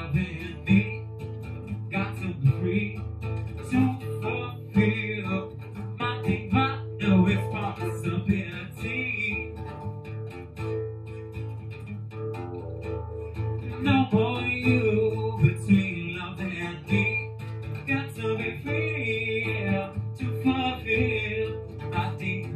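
Live music: an acoustic guitar strummed through an instrumental stretch of a song, with occasional singing over it.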